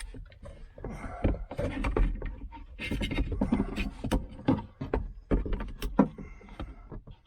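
Jumper-cable clamps being handled and fastened to a car battery's side-post terminal: an irregular string of clicks, knocks and rattles.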